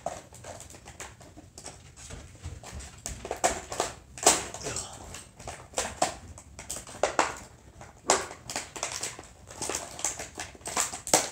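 Plastic packaging of a trimmer tune-up kit crinkling and rustling in irregular bursts as it is opened by hand.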